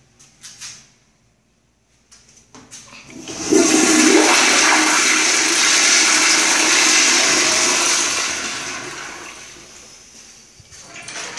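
Toto CT705 commercial toilet flushing. A brief sound comes within the first second, then a loud rush of water starts about two and a half seconds in, holds steady for several seconds and tapers off as the flush ends, with a short sharp sound at the very end.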